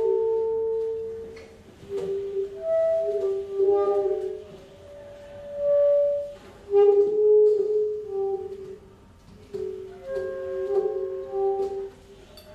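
Live small-group jazz: two alto saxophones and a low brass horn play long held notes in a sparse, quiet passage, the phrases separated by short pauses. Light cymbal and drum touches sound here and there.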